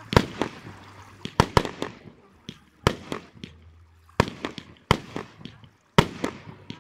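Aerial fireworks shells bursting overhead: about a dozen sharp bangs at irregular intervals, some in quick pairs, each fading out between reports.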